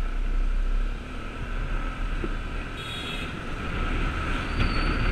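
Honda Click scooter riding steadily, its engine running under a heavy low rumble of wind on the microphone. A brief high-pitched beep comes in about three seconds in.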